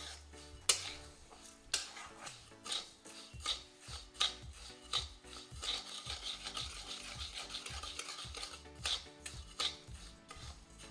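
A metal spatula scraping and stirring dry, clumped sugar around a hot kadhai in repeated gritty strokes, roughly one or two a second. The sugar has gathered into granular lumps and has not yet melted into syrup.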